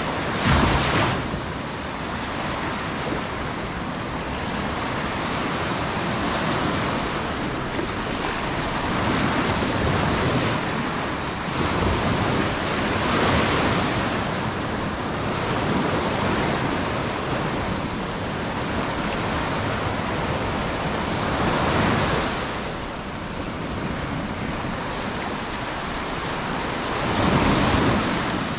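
Sea surf washing onto the shore: a steady rush of water that swells into louder breaking waves every several seconds.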